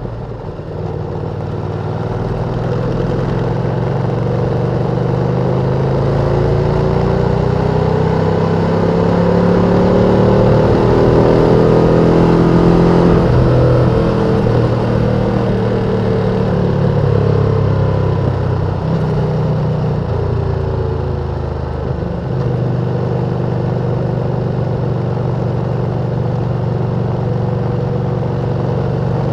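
Ducati Panigale V2's stock-exhaust engine running under way. Its pitch climbs slowly for about twelve seconds, drops a little past the middle, then holds fairly steady.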